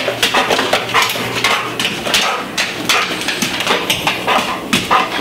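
Dog's claws clicking on a hardwood floor as it walks, a quick irregular run of taps.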